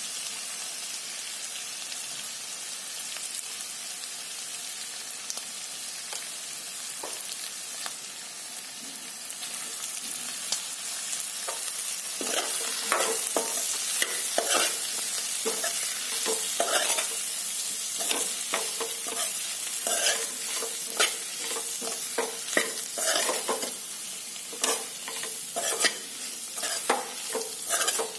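Chopped onion and capsicum sizzling in oil in a metal kadhai. From about twelve seconds in, a metal spoon stirs boiled potato cubes through the vegetables, scraping against the pan in repeated strokes over the sizzle.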